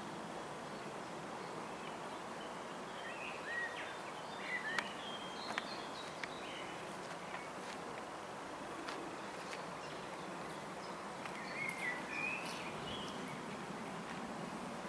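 Woodland ambience: a steady background hiss with birds chirping briefly about three to five seconds in and again near twelve seconds, and a few sharp ticks.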